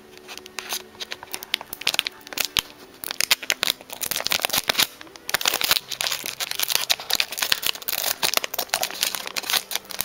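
Foil wrapper of a Pokémon trading card pack crinkling and crackling irregularly as it is handled and opened by hand.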